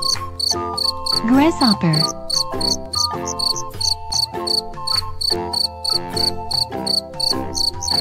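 Grasshopper chirping in short, evenly repeated high pulses, about three or four a second, over light background music.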